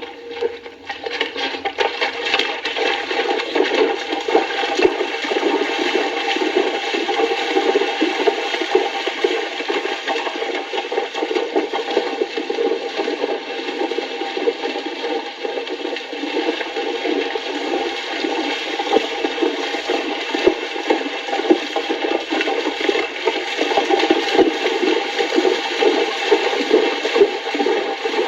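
Horses fording a stream: continuous splashing and churning water, an archive sound-effects recording.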